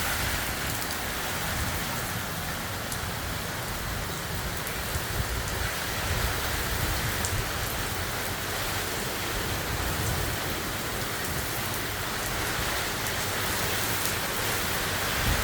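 Heavy hurricane rain pouring down steadily, with an unsteady low rumble underneath.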